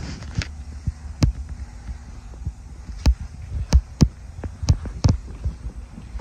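Footsteps of someone walking, a series of low thumps at an uneven walking pace, over a steady low hum.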